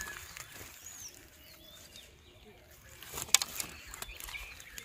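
Birds chirping in the background, short high calls scattered throughout. A single sharp knock a little over three seconds in is the loudest sound.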